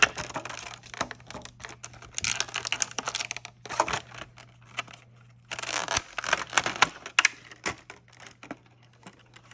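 Packaging being handled and opened, with crinkling, rustling and tearing in two longer spells and small clicks and taps of parts in between.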